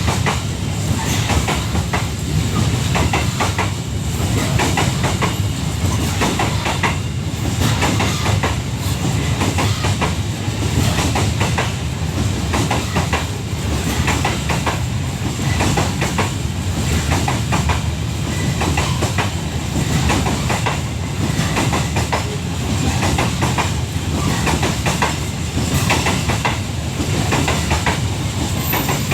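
Wagons of a long Babaranjang coal train rolling past, the wheels clattering steadily over the rail joints above a low rumble.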